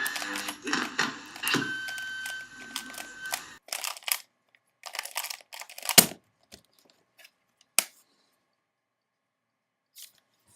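Background music that cuts off about three and a half seconds in, followed by scattered sharp clicks and taps, the loudest about six seconds in.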